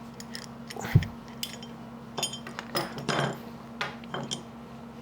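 Light metallic clinks and taps of small steel plane parts and hand tools being handled on a workbench, scattered a second or so apart, with a duller knock about a second in.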